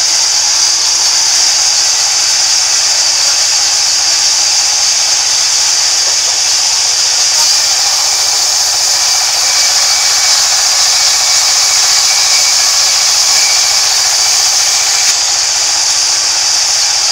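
Sawmill band saw running steadily while a timber slab is fed through the blade, giving a loud, even, high-pitched hiss.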